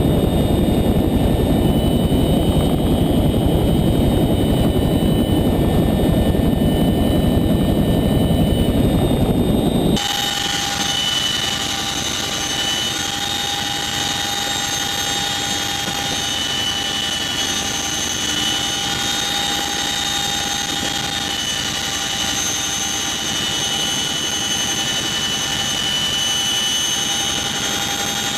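CH-47 Chinook helicopter heard from on board, its twin turboshaft engines and rotors running steadily in flight. For the first ten seconds it is a loud, low rumble. About ten seconds in it cuts to a somewhat quieter sound with a steady high turbine whine made of several held tones.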